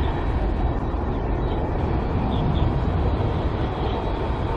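Airbus A350's twin Rolls-Royce Trent XWB jet engines at takeoff thrust during the takeoff roll: a steady, deep rumble that holds even throughout.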